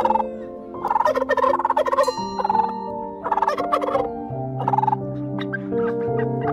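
Wild turkey tom gobbling several times, each gobble a quick rapid rattle, the longest about a second in. Soft sustained background music runs underneath.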